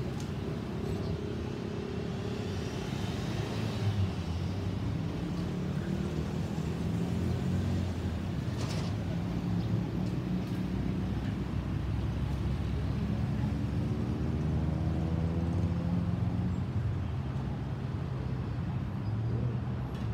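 Steady low rumble of a Boeing 737-800's CFM56 jet engines as the airliner flies over on its climb-out, with pitched tones in the rumble that slowly rise about two-thirds of the way through.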